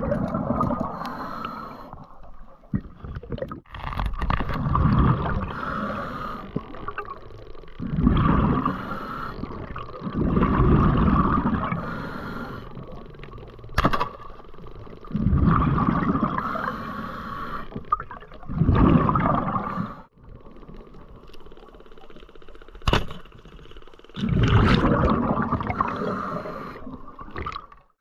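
Underwater water noise picked up by a diver's camera, surging and fading every few seconds, with two sharp clicks partway through.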